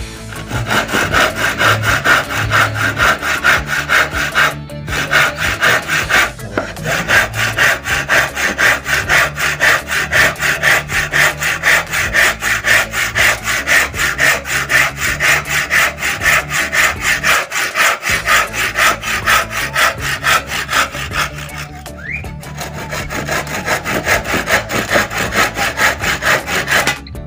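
Hand saw cutting into a wooden plank in quick, even back-and-forth strokes, about two to three a second, stopping briefly a few times. This is a test cut with the freshly sharpened saw.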